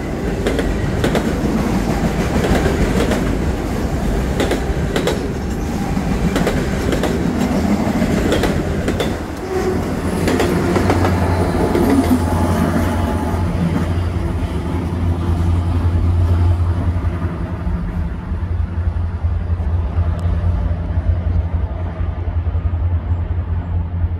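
Freight train of autorack cars passing close by, steel wheels clicking over the rail joints. About ten seconds in, a diesel-electric locomotive in the train passes, adding a steady low engine drone that carries on as the clicking thins out.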